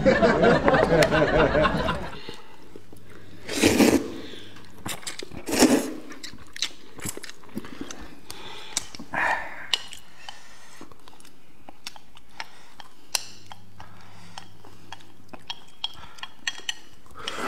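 Two people eating mianpi noodles with chopsticks: chewing, with many small scattered clicks of chopsticks and plates. It opens with a loud wavering tone lasting about two seconds, and there are a few short louder bursts of sound in the middle.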